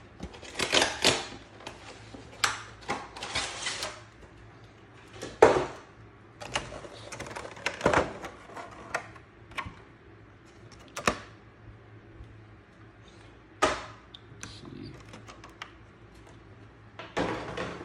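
Clear plastic packaging of a trading-card collection box being pulled open by hand: crinkles, clicks and snaps of the thin plastic window and tray in irregular bursts, the sharpest about five and a half and eight seconds in. A faint steady low hum runs beneath.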